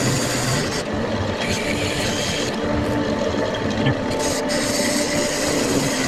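Old Craftsman wood lathe running, with a turning chisel scraping a spinning maple blank. A steady motor hum sits under a hissing scrape that cuts in and out several times as the tool bites and eases off.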